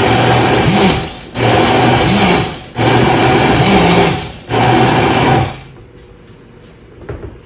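Countertop blender pulsed four times in bursts of about a second each, churning a thin, soupy puppy-food mush. It stops a little past halfway, and a light knock follows near the end.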